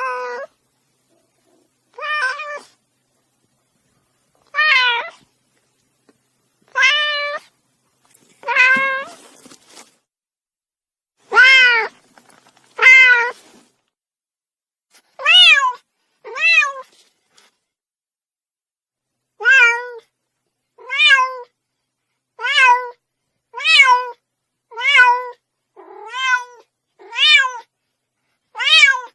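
Domestic cat meowing over and over: about seventeen short separate meows, each rising then falling in pitch, with silence between. They come about every two seconds at first and about once a second near the end.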